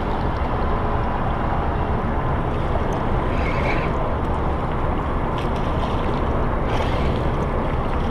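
Steady rushing noise of wind and water around a small fishing boat, even throughout, with a few faint ticks.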